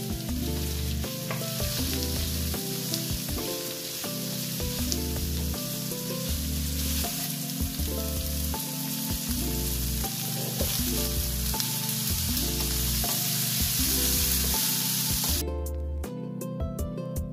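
Sliced red onions sizzling in hot oil in a nonstick frying pan, stirred with a wooden spatula, over background music. The sizzling cuts off abruptly about fifteen seconds in while the music plays on.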